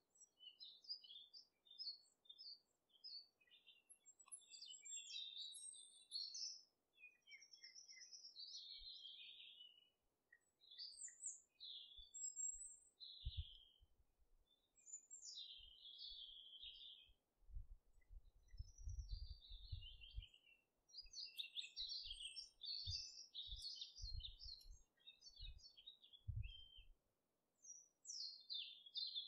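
Faint birdsong: many short chirps and twittering phrases, close together. Low thuds come now and then in the second half.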